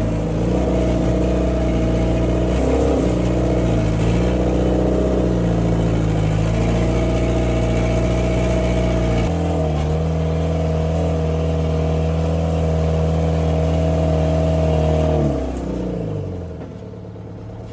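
C4 log skidder's diesel engine running at high revs, the pitch sagging and recovering a few times as it is loaded. About fifteen seconds in, it drops back to a lower idle.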